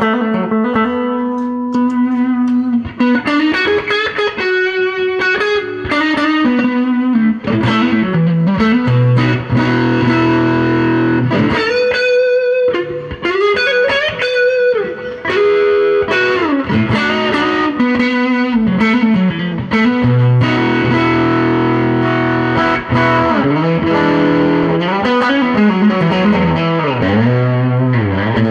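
Electric guitar played through a fuzz pedal: a lead line of held notes with string bends and vibrato.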